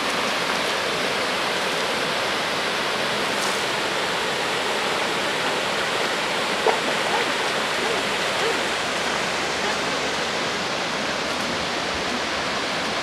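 Steady rushing of a flowing river over a shallow, stony bed.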